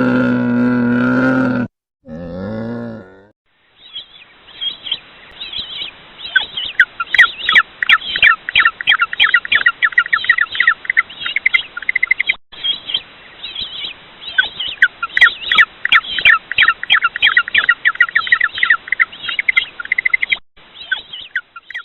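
A flock of birds calling in quick, dense chirps, many per second, after a long low animal call at the start and a shorter call right after it; the chirping breaks off twice for a moment.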